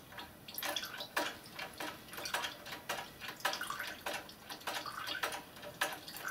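Water splashing and gurgling in short, uneven bursts as the miniature steam locomotive's hand pump is worked, pushing water from the side tanks through the pipework into the boiler.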